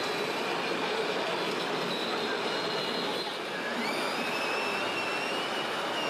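High electric whine of a radio-controlled model's motor, rising in pitch about four seconds in and then holding, over the steady noise of a busy exhibition hall.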